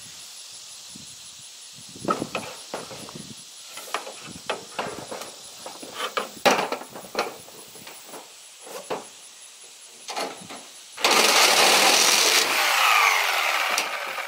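Master Force corded reciprocating saw cutting through the corrugated steel sheeting of a pole-barn sliding door for about three and a half seconds near the end, the blade squealing on the metal. Before it, scattered knocks and clatter of handling the saw and the metal door.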